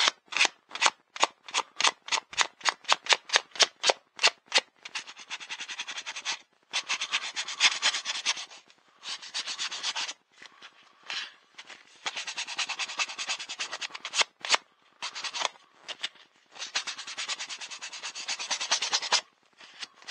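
Sandpaper rubbed by hand along a small carved wooden canoe paddle. It starts as quick short strokes, about three a second, then goes over to longer runs of steady scrubbing broken by short pauses. This is light smoothing to take off small snags in the carved surface.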